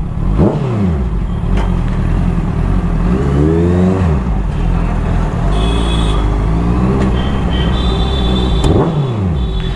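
Honda sport motorcycle engine running in slow stop-and-go riding, its revs rising and falling several times as the throttle is opened and closed. A high steady tone sounds briefly about six seconds in and again near the end.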